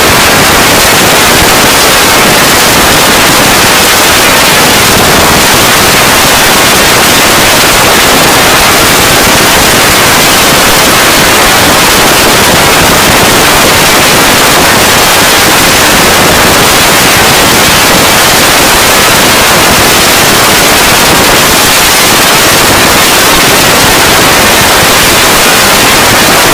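Extremely loud, heavily clipped digital static: a sound effect run through distortion and pitch-shifting filters until it is a dense, even crackling hiss with no clear pitch or rhythm.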